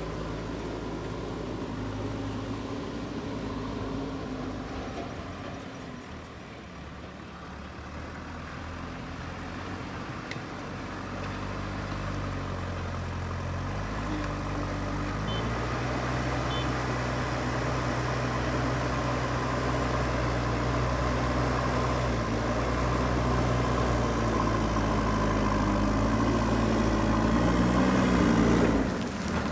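Diesel engine of a JCB earthmoving machine running under working load, its pitch stepping up and down as it revs. It dips in loudness about six seconds in, grows steadily louder, then breaks off sharply near the end.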